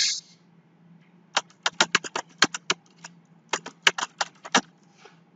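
Typing on a computer keyboard: a quick, uneven run of key clicks that starts about a second and a half in and stops shortly before the end.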